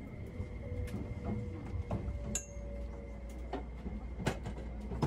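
Interior of a Tobu SPACIA X train car: a steady low rumble with a faint steady hum, broken by scattered light knocks and clicks and a short metallic clink about two seconds in.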